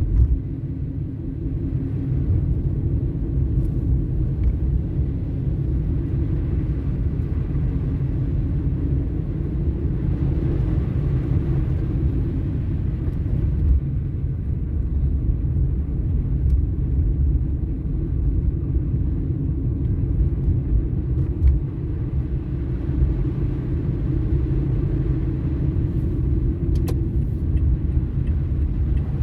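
Steady low rumble of a car driving slowly over a snow-covered road, heard from inside the cabin.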